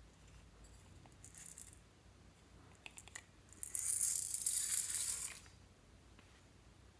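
Small beads pouring out of a plastic toy teacup onto slime, a rattling patter of many tiny hits lasting almost two seconds, starting about halfway through. It follows a few fainter rattles as the cup is handled.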